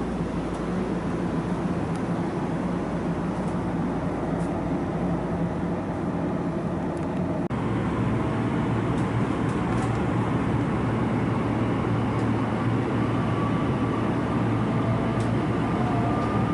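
Train running noise: a steady rumble of a railcar in motion, with an abrupt change in the sound about halfway through and faint, slightly rising whining tones near the end.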